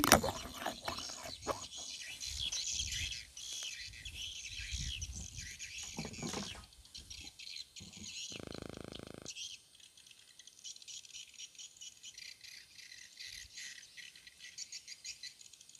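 Swamp ambience of insects and birds chirping and ticking. Rustling and knocks run through the first six seconds, and a steady buzz lasting about a second comes about eight seconds in.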